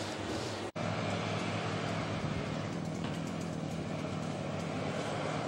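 Steady outdoor background noise, an even rushing wash with a faint low hum, broken by a momentary dropout just under a second in.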